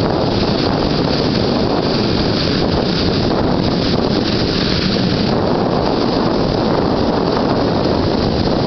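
Strong wind buffeting the microphone over the steady rush of large lake waves breaking on a beach.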